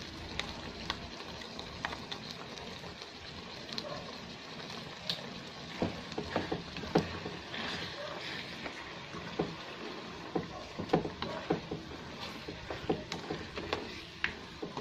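Glutinous rice being stirred into simmering coconut milk and sugar in a nonstick pan with a wooden spatula: a steady simmering hiss, with irregular knocks and scrapes of the spatula against the pan from about six seconds in.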